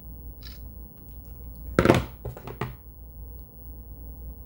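Handling noise from smartphones: a loud knock about two seconds in, then three quicker, lighter knocks, as the phones are moved and set down on a hard surface. A low steady hum runs underneath.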